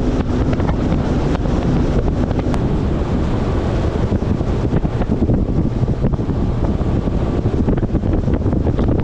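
Wind buffeting the microphone on an open fishing boat, a loud, fluttering rumble. A faint steady hum underneath stops about two and a half seconds in.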